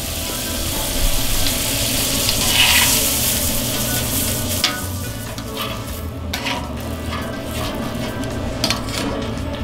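Butter sizzling on the hot cast-iron plate of a Cuisinart 360 griddle while it is spread with metal tongs. The sizzle is strongest for the first few seconds and then eases. After that come a few sharp clicks and scrapes of the tongs on the plate, over a low steady hum.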